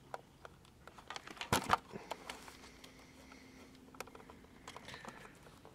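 Handling noises of a small transistor radio being turned over and opened: scattered light clicks and taps, with a louder pair of knocks about a second and a half in.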